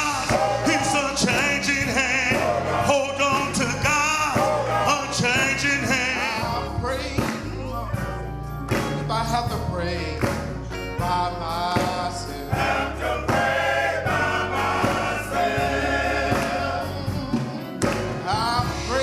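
Gospel singing with a choir and instrumental accompaniment in a church service.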